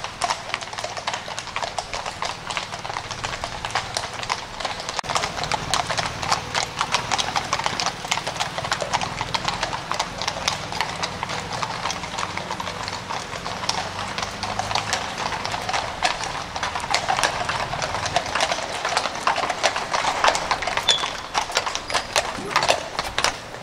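Horses' hooves clip-clopping, many uneven, overlapping strikes from the horses bringing the ambassador's carriage.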